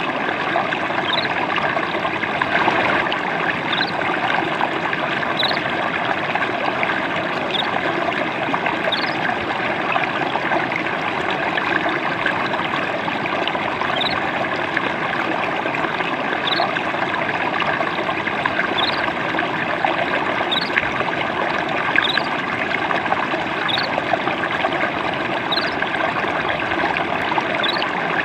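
Gently trickling, babbling stream water, a steady unbroken splashing. Short, faint high chirps recur every second or two over it.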